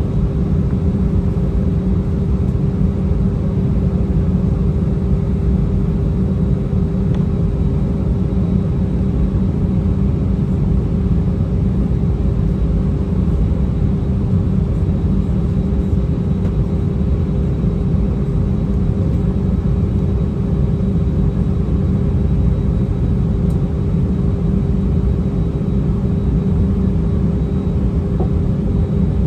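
Airbus A319 cabin noise on the ground before takeoff: the jet engines at idle give a steady low rumble with a constant hum.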